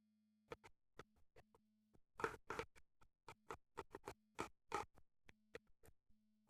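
Faint, irregular scraping and clicking of a utensil stirring Fox PVA glue and water in a plastic container, about two or three strokes a second and loudest around the middle.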